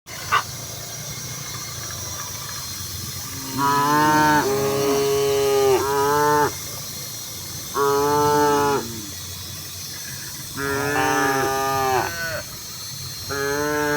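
Cattle mooing: four bouts of long, drawn-out moos, with two cows calling over each other at times. A sharp click comes right at the start.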